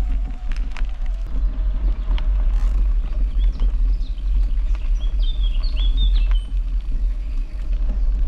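A steady low rumble of wind on the microphone with scattered light clicks. In the middle, a small bird gives a run of short, high chirps.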